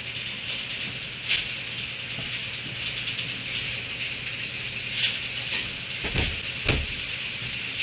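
Steady outdoor hiss over a faint low hum, broken by a few short knocks, two of them close together near the end.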